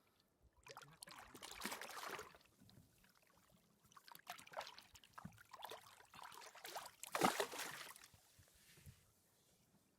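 Faint water splashing and trickling, with two louder splashes about a second in and about seven seconds in.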